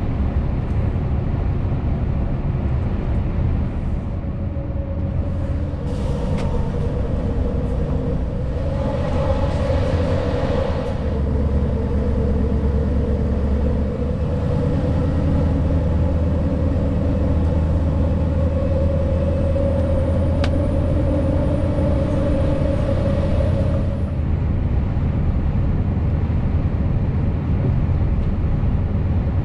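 Scania S650's V8 diesel running at a steady cruise with tyre and road noise, heard from inside the cab. The noise swells briefly about nine seconds in as the lorry passes through an underpass.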